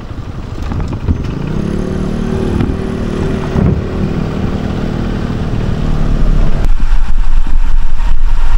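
An engine running, its pitch rising about two seconds in, then a heavy low rumble building louder near the end.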